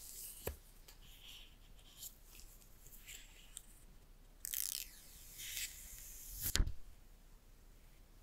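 Protective white screen wrap being peeled off the front of a new iPhone 12: soft crinkly rustling, louder about four and a half seconds in, then a sharp snap about six and a half seconds in. There is also a light tap about half a second in.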